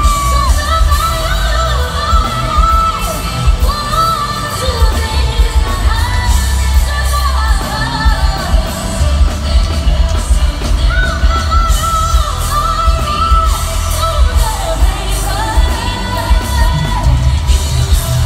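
A female pop singer singing live into a microphone over a loud backing track with heavy, pulsing bass, played through the concert sound system.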